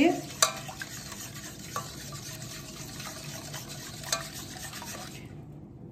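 A wire whisk stirring a milk mixture in a stainless steel pot: a steady swishing of the liquid with light clicks of the wires against the metal, a few of them sharper, stopping about five seconds in.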